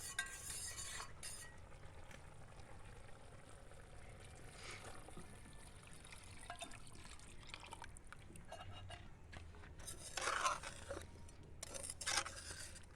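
Coconut milk being poured into a cooking pot and stirred in, with soft liquid sounds and a few clinks of utensils against the pot, the loudest near the end.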